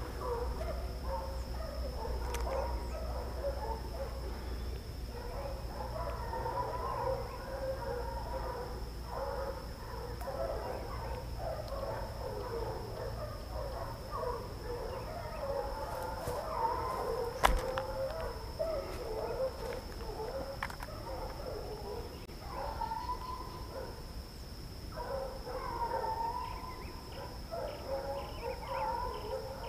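A pack of hunting dogs baying and howling as they follow the scent of a wild boar: many wavering, overlapping calls that go on with hardly a break.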